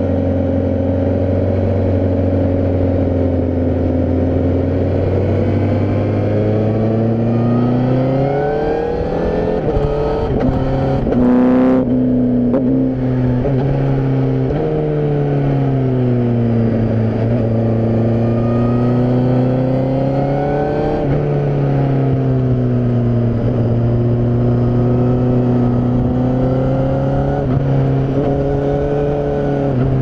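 Honda CBR1000RR-R Fireblade SP's inline-four engine heard on board, its pitch climbing under acceleration in several pulls, dropping suddenly at gear changes and falling away as the throttle closes between them. It is loudest around the middle.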